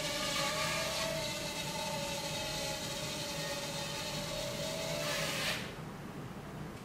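Crazyflie 2.0 nano quadcopter's four tiny coreless motors and propellers whining steadily in flight, cutting off suddenly about five and a half seconds in as the motors stop.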